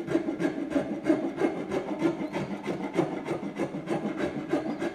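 A rasp-type hand tool shaving a hickory axe handle in quick repeated strokes, about three or four a second, trimming rough spots off the wood.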